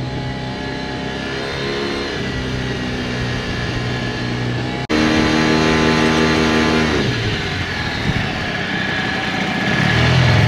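Small Mercury outboard motor running on a boat under way, its pitch steady with small steps. About five seconds in the sound jumps abruptly louder and closer, and about two seconds later the motor throttles back, its pitch falling.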